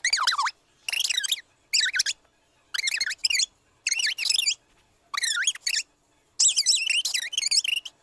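Minnie Mouse voice sped up to double speed: high, squeaky, chipmunk-like chatter in about seven short bursts with brief pauses between, the last one longer.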